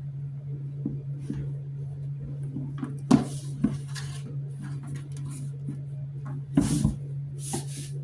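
Plastic parts of a self-cleaning mop bucket being pushed and fitted into place: scattered clicks and knocks, with two louder knocks about three seconds in and near the end, over a steady low hum.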